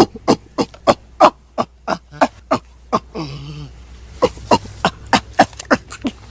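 Chimpanzee calling in a rapid series of short, sharp calls, about three a second, each falling in pitch. A little after three seconds in, a longer, lower call breaks the series, then the rapid calls resume.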